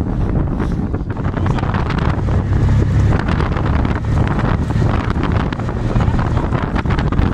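Wind buffeting the microphone: a steady, loud, low rumble with hiss.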